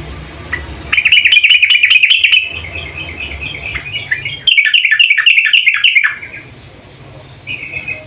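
Yellow-vented bulbul (trucuk) calling: two loud bursts of rapid bubbling chatter, each about a second and a half long, with softer chirping between them and again near the end.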